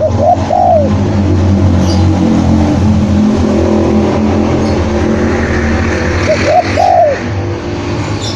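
Spotted dove cooing: two phrases about six seconds apart, each a short note followed by a longer arched coo. A steady low rumble runs underneath.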